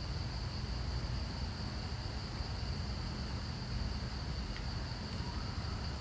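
A steady, high-pitched drone from an insect chorus, over a low rumble.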